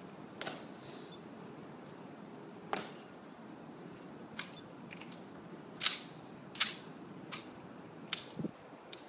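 Heel taps of a Tomb of the Unknown Soldier guard's shoes clicking on the stone plaza: about eight sharp clicks, spaced unevenly at first, then one every three-quarters of a second or so near the end, with a dull thump just after.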